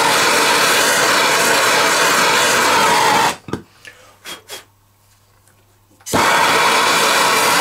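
Handheld gas blowtorch flame roaring steadily as it scorches pine in the shou sugi ban charring technique. It stops about three seconds in, leaving a few light knocks and a faint hum, then the roar comes back abruptly about six seconds in.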